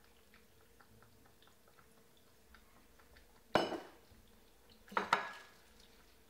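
A glass measuring jug set down on a stone worktop with a sharp clink that rings briefly, about three and a half seconds in. About a second and a half later comes a second, doubled clink of hard kitchenware, with faint small ticks before the first.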